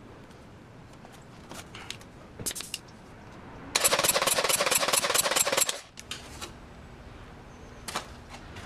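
Honda B18C1 engine being cranked by its starter motor, jumped from a car battery, for about two seconds with a fast even beat of about six or seven strokes a second, then stopping abruptly: the engine turning over for a compression test, building pressure in cylinder number 2. A few short clicks come before and after the cranking.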